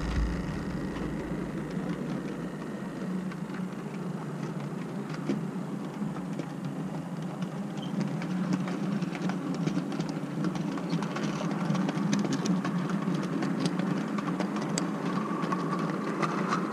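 HO-scale model trains running on the track: a steady whir of motors and rolling wheels with many light, irregular clicks as a rake of model tank wagons passes close by. It drops away suddenly at the end as the wagons clear.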